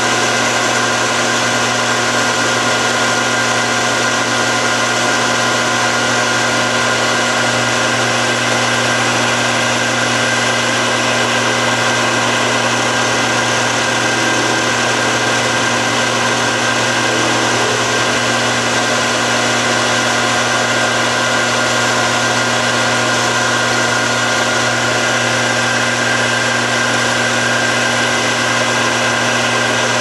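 Small metal lathe running steadily under power while turning the stem of a cast knob: an even motor and gear-drive hum with a few steady whining tones over the noise of the cut.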